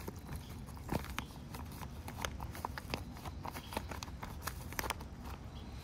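Metal spoon stirring rehydrated freeze-dried food in a foil-lined pouch: irregular light clicks and taps, with the pouch crinkling as it is handled.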